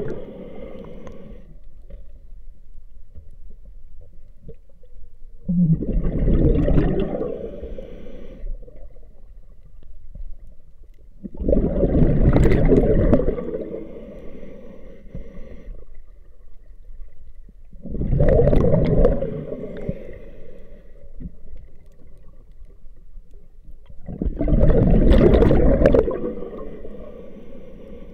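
Scuba diver breathing through a regulator underwater: four long bubbling exhalations, each about two seconds, about six seconds apart, with quieter stretches between.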